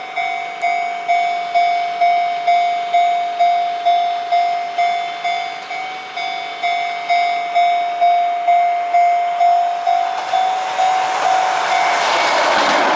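Japanese level-crossing warning bell ringing at a steady pace of about two strikes a second. From about ten seconds in, a Keihan electric train comes up and passes close, its running noise swelling until it drowns out the bell near the end.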